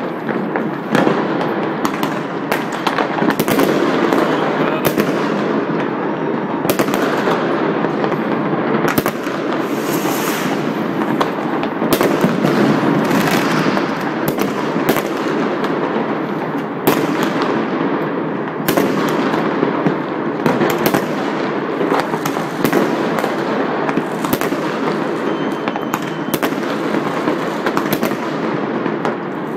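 New Year's fireworks going off all around at once: rockets, aerial shell bursts and firecrackers. The result is a continuous dense din of crackling and explosions, packed with many sharp bangs and no pause.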